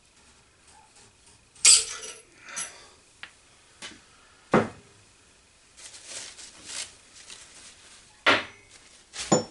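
Metal hand tools being handled and set down on a workbench: a sharp metallic clank about one and a half seconds in, then scattered knocks and clicks. A rustle of shop rags in the middle, and two more clanks near the end.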